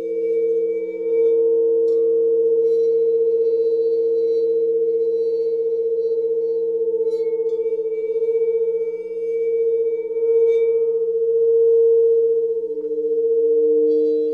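Sustained pure electronic tones of a sound-healing frequency track built on 432 Hz and 528 Hz: a steady, layered hum that slowly swells and ebbs, with faint high chime-like tones glinting on and off above it. A lower tone swells in near the end.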